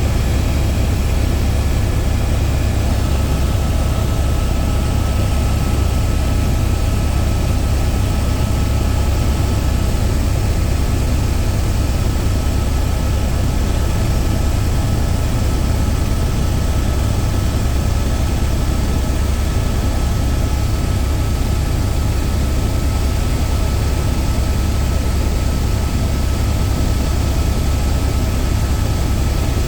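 Steady drone of a helicopter heard from inside the cabin: a loud, even low rumble from the rotor and engine, with a faint thin whine above it.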